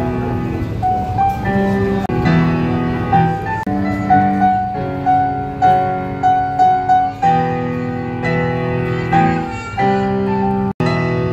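A young child playing a Casio electronic keyboard with a piano sound: a simple melody of repeated notes over changing chords. The sound cuts out for a moment near the end.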